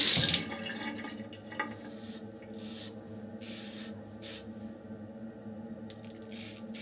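A running tap shuts off just as it begins, then a RazoRock German 37 slant safety razor with a Rapira Swedish Super Steel blade scrapes through lather and a day's stubble in a series of short, separate strokes about a second apart.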